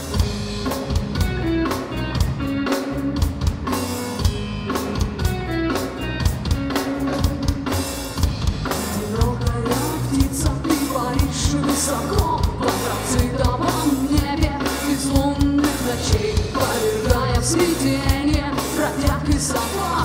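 Live rock band playing: electric guitar, bass guitar and drum kit, with a steady drum beat.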